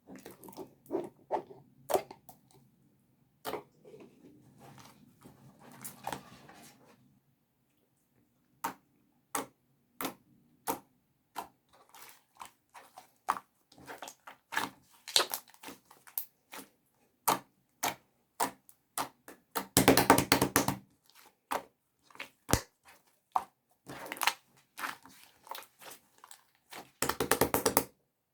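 Clear slime being worked by hand, giving a string of sharp separate clicks and pops. Twice it breaks into a dense run of rapid crackling, once about two-thirds of the way through and again near the end.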